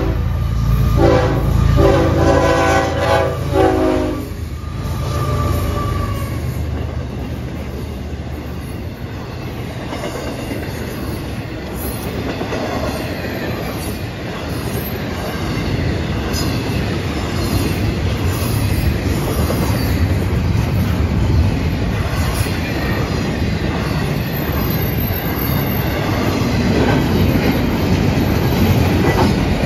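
Florida East Coast Railway intermodal freight train's locomotive horn sounding a multi-tone chord in several blasts for the grade crossing, ending about four seconds in. The train then rolls past, its wheels on the rails making a steady, loud noise.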